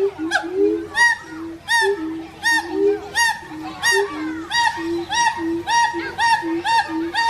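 Monkeys calling in a forest: a run of short pitched calls repeated about one and a half times a second, over a lower, steadier series of short notes from other callers.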